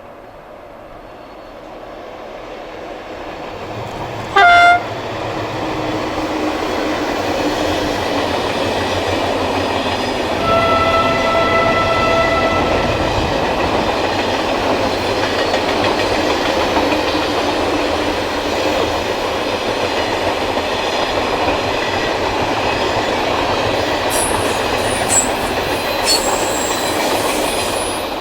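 A passenger train approaches, running louder over the first several seconds, then passes slowly with a steady rumble for about twenty seconds. Its horn gives a short, loud blast about four seconds in and a longer, softer note about six seconds later; a few sharp clicks come near the end.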